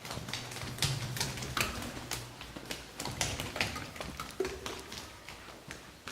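A run of irregular sharp clicks and taps, typewriter-like, about a dozen over six seconds, with a low hum under the first two seconds.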